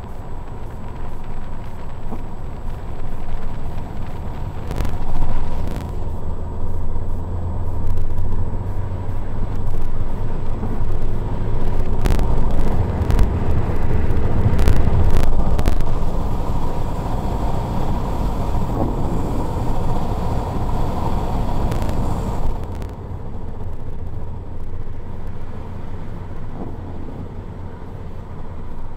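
Road and wind noise inside a 2016 Ford Escape driving fast on a wet road, with a deep steady rumble and a few sharp clicks. The noise drops in level about 23 seconds in.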